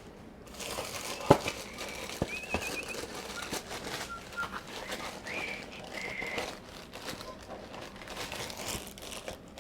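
Rustling and crinkling of a pancake-mix packet being pulled open and handled, with a sharp tap about a second in. Brief high whistle-like notes come a few times in the middle.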